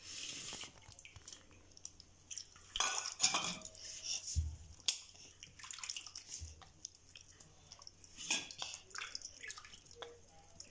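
Hands squeezing and kneading a ball of fresh butter in water in a stainless steel bowl: scattered sloshing and splashing, light clinks of steel, and a couple of low knocks of the bowl. This is the butter being washed so that no milk is left in it before it is cooked into ghee.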